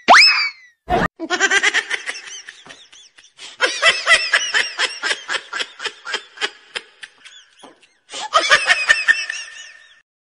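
Cartoonish laughter sound effect: rapid, high-pitched bursts of giggling laughter, opening with the tail of a quick rising whistle-like glide.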